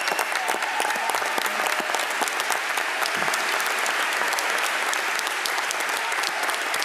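Large audience applauding steadily, with many hands clapping at once.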